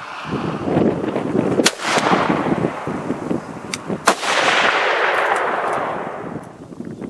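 Black-powder rifle shots: two sharp reports about two and a half seconds apart, each trailed by a long rolling echo; the first is the P56 Enfield percussion rifle firing a 40-grain black-powder load.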